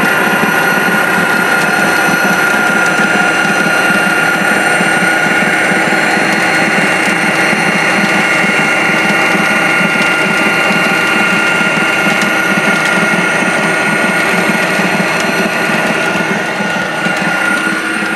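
Model train running past: the locomotives' motors and gears whine steadily over the rattle of wheels on the track, easing off near the end as the train clears.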